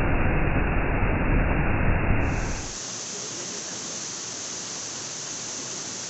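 Waterfall rushing over rocks into a pool, a loud steady roar heavy in the low end. About two and a half seconds in it changes abruptly to a quieter, more even hiss of falling water.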